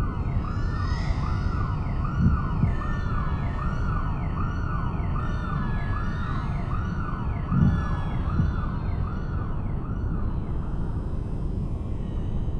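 Electronic noise music: a wailing tone that sweeps up and down about one and a half times a second over a dense, loud low rumble. The wailing fades out near the end.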